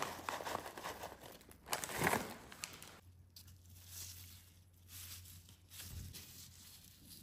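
A snack bag and thin disposable plastic gloves crinkling as crunchy corn puffs are shaken out into a gloved hand. It is busiest in the first two seconds, then only faint rustles of handling.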